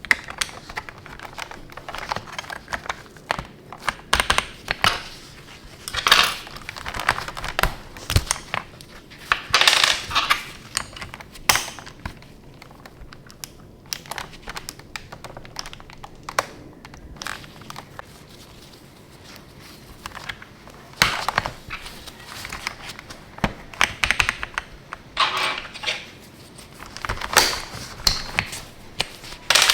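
Irregular plastic clicks, taps and rattles from mechanical keyboard switches and keycaps being handled on a hot-swap keyboard, in uneven clusters with quieter gaps.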